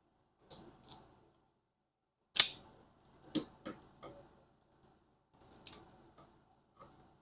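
A run of small, sharp clicks and clinks of hand tools and metal fasteners being worked on a car seat, the loudest a single hard click about two and a half seconds in, with a few more in quick clusters after it.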